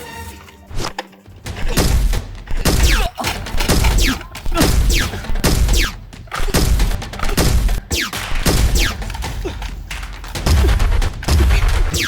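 A rapid gunfight sound track: volleys of gunshot effects with heavy bass thuds and quick falling whizzing tones, laid over action music.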